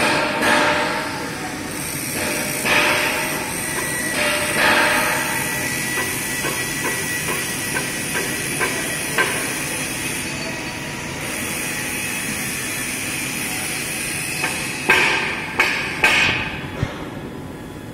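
LVD CNC hydraulic press brake working sheet metal: a steady machine hum with several rushing surges in the first few seconds, a few light ticks in the middle, then four sharp metal clanks close together near the end.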